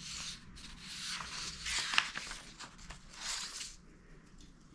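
Paper instruction sheets rustling as they are handled and leafed through: four or five brief swishes, with a sharp crinkle about two seconds in.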